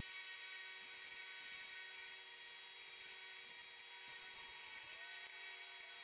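Benchtop 4x36 belt and disc sander running with a steady high whine while an MDF block is sanded flat on its disc, with a light hiss of sanding; a further tone joins about five seconds in.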